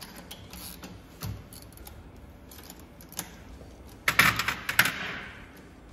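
Small metal parts and hand tools clicking and clinking as an engine is taken apart by hand. About four seconds in there is a louder burst of jangling metal clatter lasting about a second.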